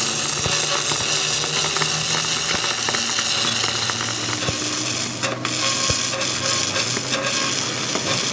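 Stick (arc) welding a repair on a broken truck rear axle housing: the electrode's arc crackles and sizzles steadily, with a short break about five seconds in.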